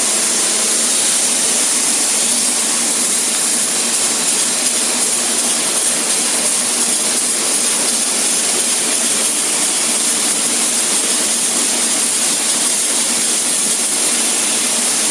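Spray foam insulation gun hissing steadily as it sprays foam onto the underside of a roof deck.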